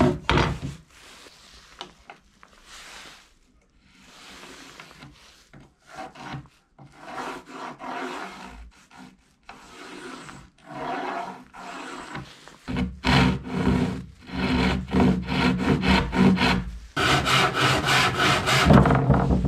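Random orbital sander with coarse 40-grit paper grinding rough pallet wood, in short stop-start passes at first, then running longer and louder over the last several seconds.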